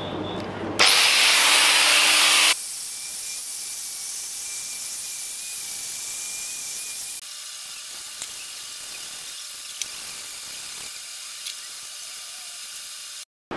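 Angle grinder spinning up and grinding the scaled, rusty surface of a mill-drill part, loudest in the first couple of seconds, then running on more steadily. About halfway through it gives way to the quieter scratching of a hand-held abrasive pad rubbing bare metal.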